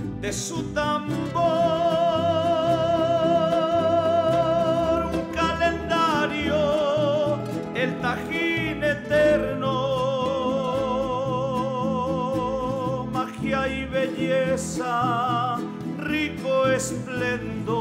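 Background music: long held melody notes with a wide vibrato over a pulsing bass line.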